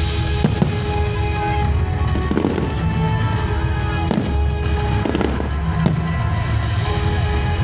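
A fireworks display: aerial shells bursting with repeated bangs and crackles, over music that plays throughout.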